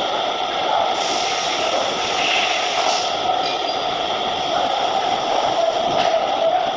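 TIG welding arc on 304 stainless steel, running as a steady hiss with a faint buzz; the hiss grows brighter for about two seconds near the start.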